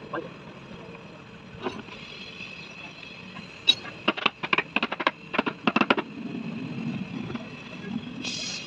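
A quick run of about a dozen sharp knocks over roughly two seconds, starting a little before the middle, over a steady background hum.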